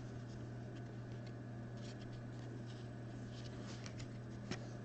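Faint rustling and soft clicks of trading cards being slid and flipped by hand, with a sharper tick near the end, over a steady low hum.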